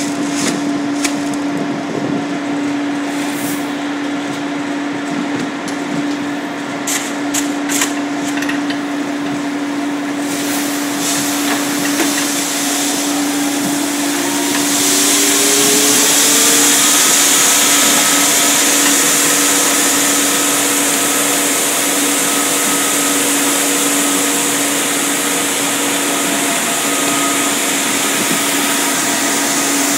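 Motor-driven grain-handling machinery running with a steady hum, with scattered clicks and knocks in the first third. About halfway through, its pitch climbs over a few seconds and then holds, and a loud hiss comes in on top.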